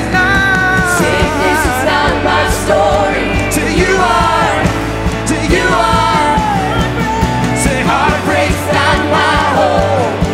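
Live worship band playing and singing: sung lead vocals over electric guitars, bass and drums. The deep bass and kick drop away about eight seconds in.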